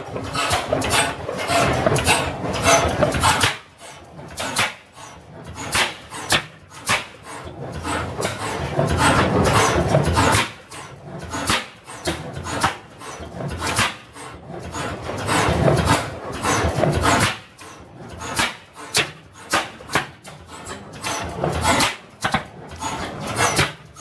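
Twin-cylinder slide-valve, flame-ignition hit-and-miss gas engine running loud, with sharp exhaust reports and knocks that come in runs and ease off between them.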